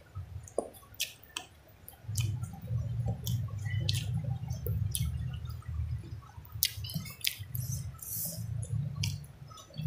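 Close-miked chewing with wet mouth clicks and smacks as a person eats with her hands, and a low rumbling that sets in about two seconds in.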